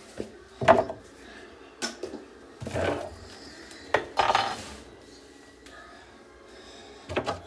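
Bottles and containers knocking and clattering as they are taken out from under a bathroom sink and set down, about six separate knocks spread out, with a quieter gap before a last clatter near the end.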